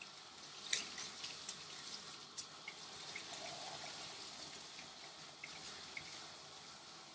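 Water hissing steadily from a handheld grooming-tub sprayer onto a dog's soapy wet coat as the shampoo is rinsed out, with a few short clicks and drips.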